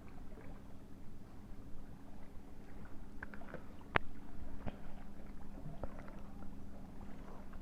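Steady low hum with scattered small clicks and taps of eating, and one sharper click about four seconds in.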